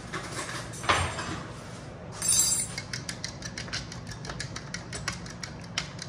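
A fork whisking raw eggs in a glass bowl: a knock about a second in and a sharp clink just after two seconds, then rapid, even clicking of the fork against the glass, about six or seven strokes a second.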